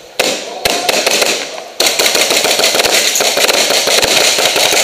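Rapid, dense crackle of airsoft gunfire, many shots overlapping, with a short lull about a second and a half in before it picks up again.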